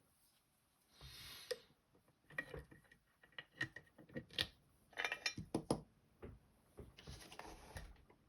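Small metal clicks and rattles from the M&C Color+ dimple-lock cylinder and picking tools being handled as the picked lock is turned back to locked. There are irregular clicks with a few short scraping rattles about a second in and again around five and seven seconds.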